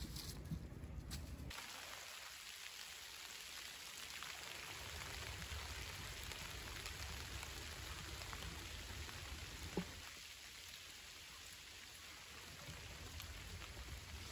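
Steady rain falling in woodland: an even hiss with scattered drop ticks, beginning suddenly about a second and a half in. A single short knock comes near the ten-second mark.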